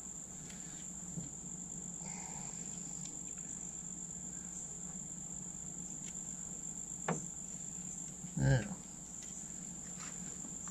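Steady, high-pitched insect buzz, one unbroken tone, with a sharp click about seven seconds in and a short, louder low sound about a second later.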